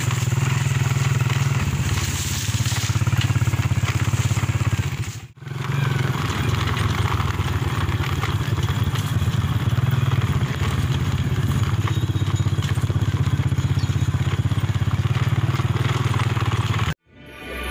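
Motorcycle engine running steadily at riding speed on a dirt track. It cuts out briefly about five seconds in and stops shortly before the end.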